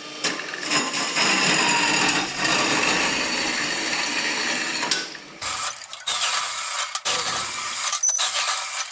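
3/4-inch EMT steel conduit being cut to length: a cutting tool runs steadily through the metal for about five seconds, then stops abruptly and gives way to metallic clicking and handling knocks.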